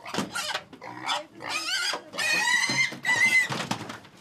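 Young pigs squealing in a run of high-pitched calls: several short squeals, then two longer, held squeals from about two seconds in.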